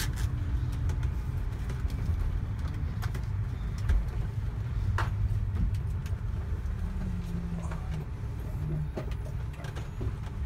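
Temsa Safir coach's diesel engine running at low speed, a steady low rumble heard inside the cabin, with a few short clicks and knocks, the clearest about four and five seconds in.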